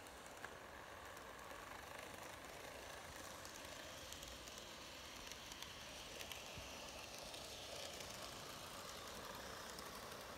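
TOMIX N-gauge model train running on its track: a faint, steady whirr of the small motor and wheels, with a few light clicks.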